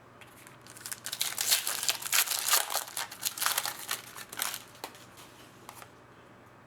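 Crinkling and tearing of a foil sports-card pack wrapper being ripped open and handled, a dense crackle for about three and a half seconds starting about a second in, then a few scattered crinkles.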